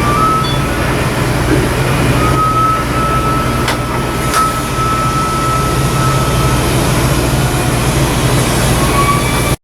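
Steady low machinery rumble, like a running engine or generator, with a faint thin high tone above it and two sharp clicks about four seconds in.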